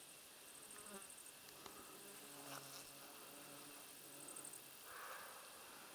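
Faint meadow insects chirring in quick, very high pulses that come and go. Near the end comes a short, faint, rough call of a distant roe buck barking.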